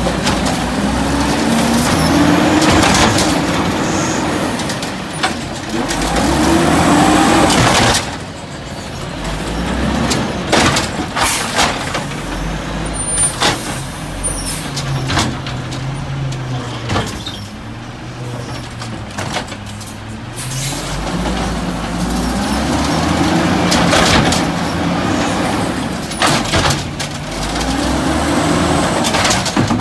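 WhiteGMC garbage truck's Cummins L10G natural-gas engine revving hard while the Amrep Rail Arm automated side loader works. The engine is held at high revs, drops back about eight seconds in, then revs up again about two-thirds of the way through. In the lower stretch between, there are several sharp metal knocks and clanks from the arm and carts.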